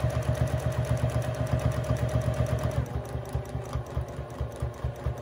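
Domestic sewing machine stitching at speed during free-motion quilting, its needle going with a fast, even rhythm of about ten stitches a second. A steady motor whine runs over the stitching and drops away about three seconds in, while the stitching carries on.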